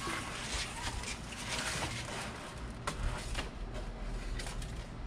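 Scattered light clicks and taps of bike parts being handled as the front wheel's axle rod, spring and nut are fitted and lined up in the fork.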